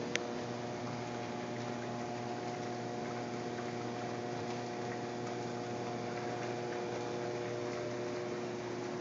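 2003 Dimension One hot tub's pump running: a steady electric hum over an even rush of moving water. A short sharp click right at the start.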